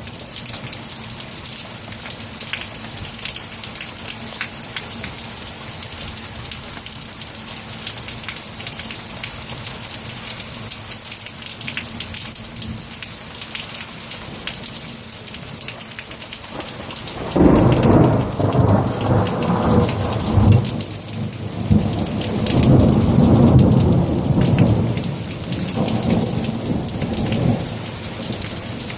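Steady rain falling throughout, with a thunderclap breaking out suddenly about two-thirds of the way in and rumbling on in several swells for about ten seconds before fading back under the rain.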